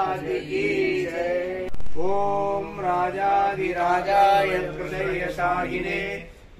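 A man chanting a Hindu devotional mantra in long, held notes, breaking off briefly about two seconds in.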